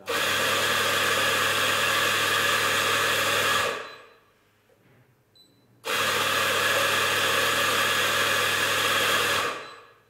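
Sanremo on-demand espresso grinder grinding beans twice, each run about three and a half seconds with a steady motor hum, starting abruptly and tailing off at the end. It is purging two double doses of old grounds after the grind was set finer.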